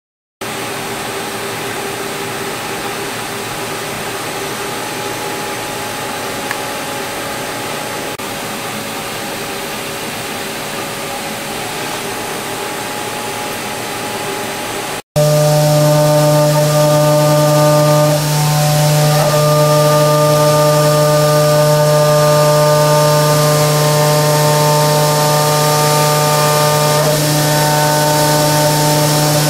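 CNC vertical milling machine cutting a steel stamping die, its spindle running steadily with a continuous cutting hiss and several held whining tones. About halfway through it jumps to a louder pass with a strong steady hum, as the cutter works amid coolant spray.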